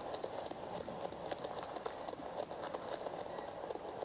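Ghost box (spirit box) sweeping through radio stations: a steady static hiss chopped by rapid, irregular clicks, left running while a spirit is asked for an answer.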